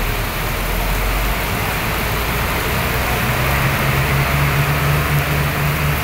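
A tour bus's diesel engine runs as the bus pulls away through heavy rain, under a steady hiss of rain. The engine's low note comes up and rises slightly in pitch about three seconds in.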